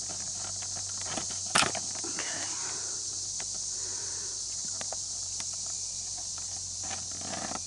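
Scattered light ticks and crackles of footsteps on forest litter, with one sharp snap about one and a half seconds in, over a steady high hiss.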